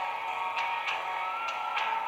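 Music playing, with a held tone and a few sharp percussive hits.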